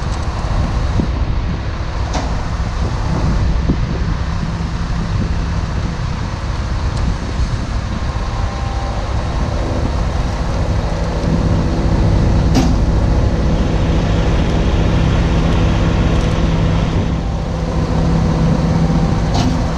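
Heavy diesel tow truck engine running steadily under load while winching a leaning, loaded semi-trailer back onto the road, a little louder about two-thirds through. Three brief sharp clicks or knocks punctuate it.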